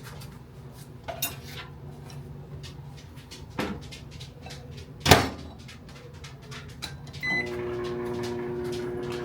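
A few kitchen knocks and a loud clack about five seconds in. Then a short high beep, and a microwave oven starts running with a steady hum.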